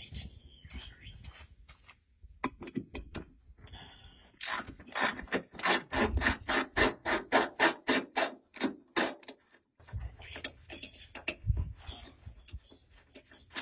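Hand-tool work on the mounting hardware of a hood gas strut. About four and a half seconds in, a run of roughly twenty even rasping strokes begins, about four a second, and stops a little past the middle. Scattered handling clicks come before and after it.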